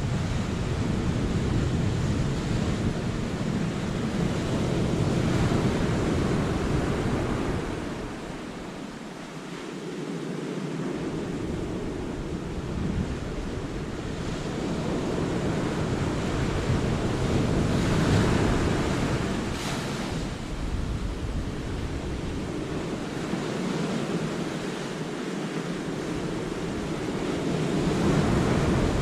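Sea waves breaking and washing over the rocks of a cove, surging and easing in slow swells: strong at first, dropping back about a third of the way in, then building again to peaks about two-thirds through and at the end. Wind rumbles on the microphone underneath, cutting out briefly twice.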